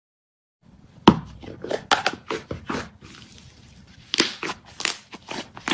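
Slime being squeezed and poked by hand, giving an irregular run of sharp clicks and crackling pops that starts about a second in.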